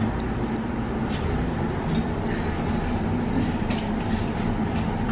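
Steady low rumble with a constant hum, typical of a room air conditioner running. A few faint clicks and rustles come from sheer curtains being pulled aside on their rail.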